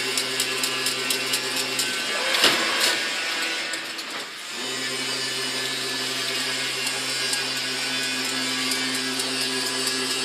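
Automatic chain link fence machine running: a steady electric motor hum with fast clicking and rattling from the weaving mechanism. About two seconds in the hum stops for a couple of seconds, with a loud clatter, then starts again and runs on steadily.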